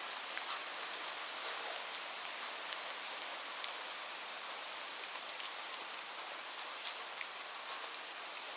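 Light rain falling steadily: an even hiss with scattered individual drops ticking on a surface.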